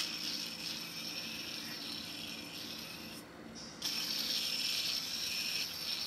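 A hand-held fidget spinner whirring as it spins after being flicked. It dies away a little after three seconds, then is flicked again and spins up louder.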